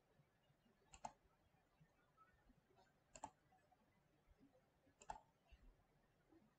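Three faint computer mouse-button clicks, about two seconds apart, over near silence.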